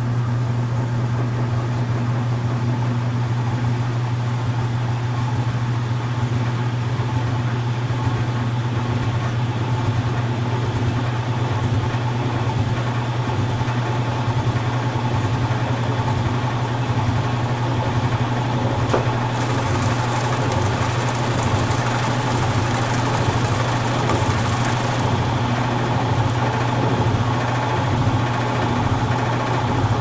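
Old washing machine on its spin cycle, the motor and drum running with a steady, unbroken hum. A hiss joins in for about six seconds roughly two-thirds of the way through.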